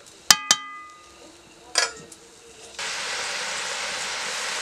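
A metal spatula strikes a kadai twice in quick succession, each hit ringing briefly, then clanks once more, softly. Then a steady hiss starts abruptly: curry gravy boiling hard in the kadai.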